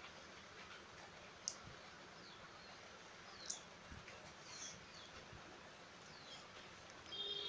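Very quiet scraping and a few short clicks from a pointed hand tool gouging notches into a wooden board, with faint bird chirps in the background.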